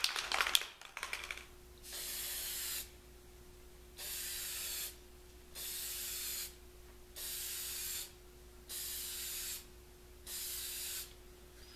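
Aerosol can of spray lacquer hissing in six short bursts of just under a second each, with a pause between them, as coats of lacquer go onto a small wooden piece. A few clicks come just before the first burst.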